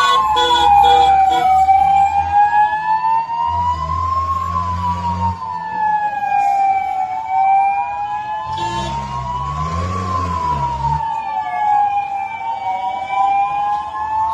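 Air raid siren wailing, its pitch slowly rising and falling over a few seconds at a time: the undulating warning that signals danger. A low rumble comes and goes underneath.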